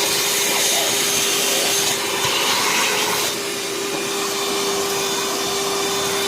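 12-volt car vacuum cleaner running off a leisure battery: a steady motor whine over the hiss of rushing air, with the hiss changing briefly about two to three seconds in.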